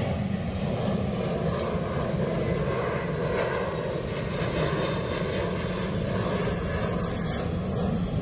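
A steady engine drone that holds an even level throughout, with faint steady tones over a broad rushing noise.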